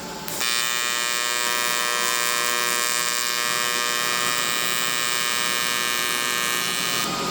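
AC TIG welding arc on aluminum, from a welder running on 110 volts, buzzing steadily: it strikes about a third of a second in and cuts off sharply near the end. It is a fusion attempt that the welder says does not look like it fused.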